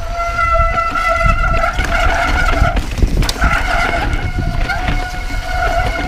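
Shimano mountain bike disc brakes honking with a loud trumpet-like tone while braking on a rough descent: a steady pitched howl with overtones that breaks off briefly about three seconds in and then resumes. Underneath is the rumble of the tyres on the rocky trail. This kind of brake noise is most often caused by glazed pads.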